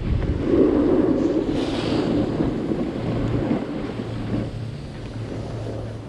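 Wind rushing over a GoPro's microphone as a snowboard slides and scrapes over groomed snow, loudest in the first couple of seconds and fading as the rider slows.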